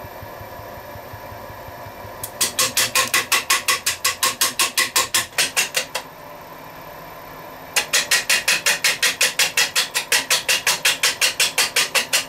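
Wood-turning gouge cutting a spinning, kiln-dried pine winged-bowl blank on a lathe: the blade meets wood only part of each turn, cutting air the rest, giving rapid, evenly spaced knocks, about six a second, in two runs of several seconds over the lathe's steady hum.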